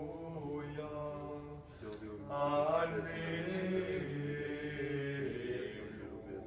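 Unaccompanied male Gregorian chant in Latin, held notes that glide from pitch to pitch, with a rising phrase about halfway through, ringing in a church.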